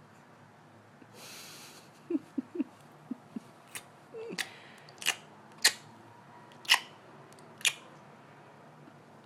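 Weird mouth noises: a brief breathy hiss, a few short low squeaks, then a run of six sharp clicks about a second apart.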